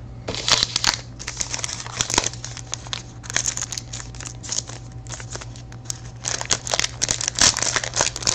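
Foil wrapper of a trading-card pack crinkling and tearing as it is handled and opened, in rapid irregular crackles.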